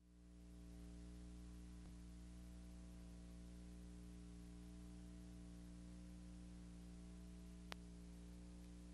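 Near silence: a faint steady electrical hum with light hiss, the noise floor of a silent archival film transfer, with one small click near the end.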